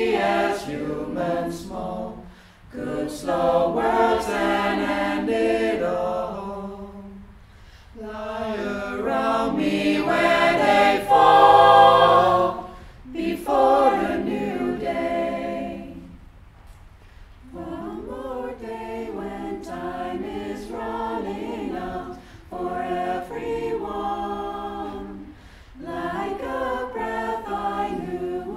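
Mixed-voice choir singing unaccompanied in several parts, in phrases with short breaks between them. It swells to its loudest a little before the middle, then carries on more softly.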